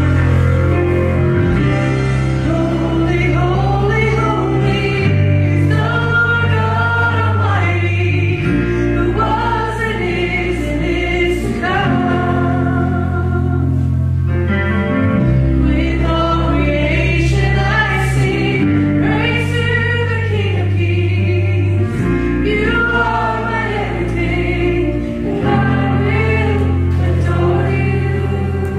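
A live church worship band performing a slow worship song: several voices singing over guitar and keyboard, with held bass notes that change every couple of seconds.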